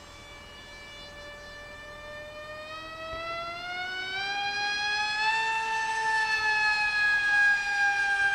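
Electric motor and propeller of a Z84 RC flying wing whining overhead. The pitch climbs and the sound grows louder over the first half, then sags slowly as the wing passes.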